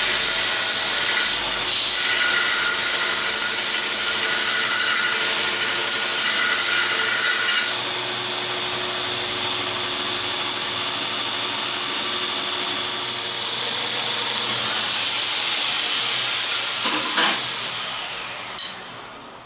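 Homemade belt grinder running with a loud, steady hiss of the abrasive belt. It is switched off and winds down over the last few seconds, with a couple of clicks as it slows.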